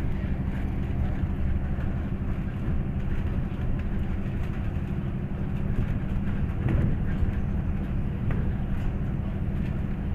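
A MAZ-203 city bus heard from inside while it drives, with its engine running and the road noise making a steady low drone. A few light rattles or clicks come in the second half.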